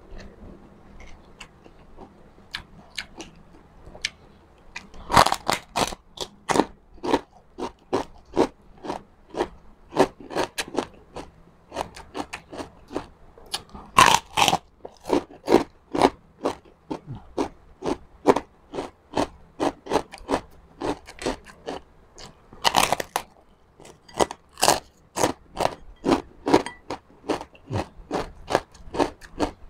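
Close-up crunching and chewing of crispy fried pork chicharon: a steady run of crisp crunches about two a second, with three louder bites spread through.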